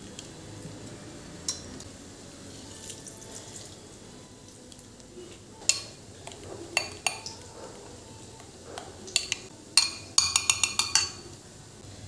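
A utensil stirring thick batter in a glass bowl, clinking against the glass now and then. Near the end comes a quick run of about half a dozen clinks.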